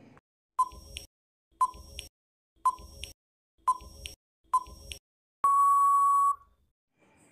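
Quiz countdown-timer sound effect: five short beeps about a second apart, then one long beep of about a second signalling time out.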